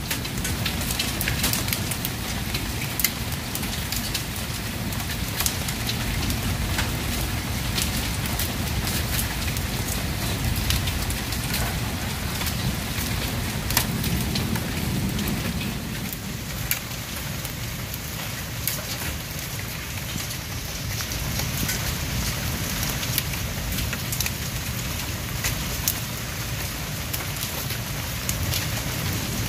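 Hail and rain falling steadily: an even hiss dotted with frequent sharp ticks of hailstones striking.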